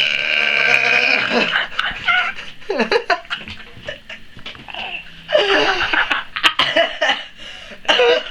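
The end of a huge, loud forced burp from a man, held on one steady pitch and cutting off about a second in, followed by bursts of laughter.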